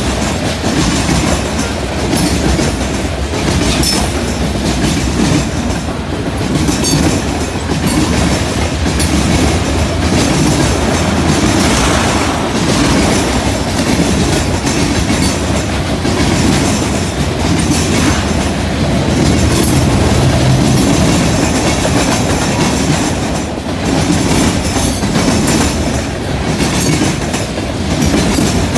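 Freight train's covered hopper and tank cars rolling past: a steady, loud rumble and clickety-clack of steel wheels on the rails.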